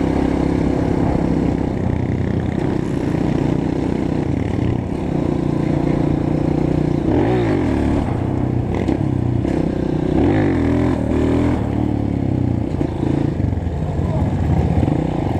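Honda CRF 230F single-cylinder four-stroke trail bike engine running under way. Its pitch holds steady in stretches and steps between them as gears change, with throttle dips and rises about halfway through.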